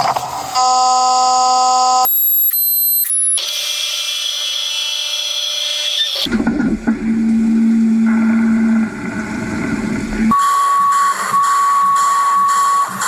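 CNC lathe machining Inconel 600 into hex bolts: a string of steady cutting and spindle tones, whining and hissing, that switch abruptly to a new pitch every two to four seconds.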